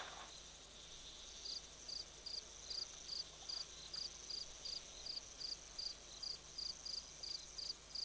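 Night insects: a steady high-pitched hum, joined about a second and a half in by a short high chirp repeating evenly about two and a half times a second.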